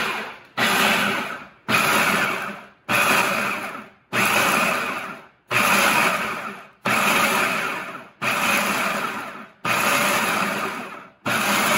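Food processor pulsed about ten times, each burst starting sharply and winding down, with short gaps between, its blade chopping rolled oats into a coarse meal.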